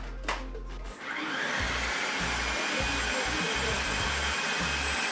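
A click, then from about a second in an electric food processor running steadily as it chops red peppers into a coarse blend.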